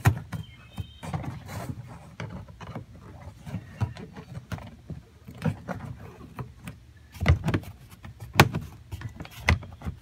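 Plastic interior trim panel and rubber weather seal being pressed and tucked into place by hand with a pick: scattered clicks, creaks and knocks of hard plastic, with a few louder knocks in the last three seconds.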